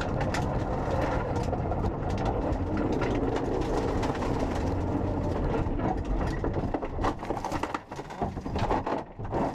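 Inside a Mitsubishi Lancer Evolution rally car, the engine runs hard over gravel. From about seven seconds in, the steady running breaks up into irregular knocks and bangs as the car leaves the road and crashes into bushes.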